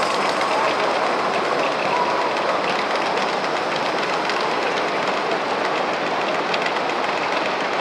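Wagons of a Gauge 1 model goods train rolling past on metal track, their wheels clicking rapidly and steadily over the rail joints.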